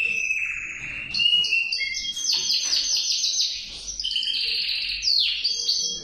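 Male canary singing a long, unbroken song of rolling trills and rapidly repeated high notes, with a quick falling note about five seconds in.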